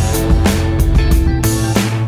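Background music with a steady drum beat, bass and guitar.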